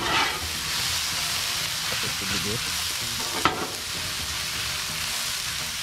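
Diced mango salsa (mango, red bell pepper, onion, jalapeño) sizzling steadily on a hot steel flat-top griddle while a metal spatula stirs and spreads it, with one sharp tap about halfway through.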